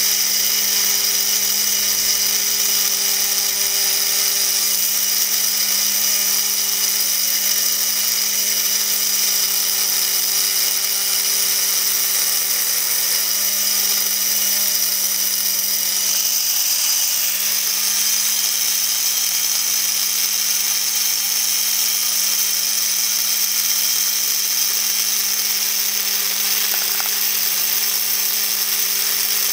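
Small electric drill running at a steady speed, its bit grinding a 3 mm hole into an 8 mm ruby ball: a steady hum under a high, hissing whine.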